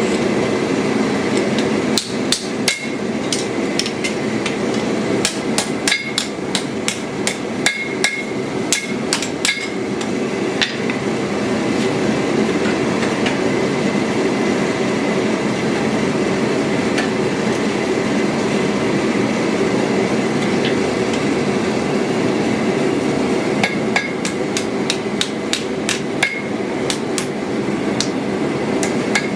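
Light, quick hammer taps in two runs, some with a short metallic ring, over a steady noise that runs throughout.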